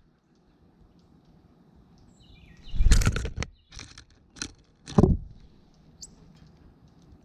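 Songbirds at a backyard feeder: a quick series of high, stepped-down chirps, then four loud, short whooshing bursts close to the microphone, like wings flapping as birds come and go, and one more faint chirp near the end.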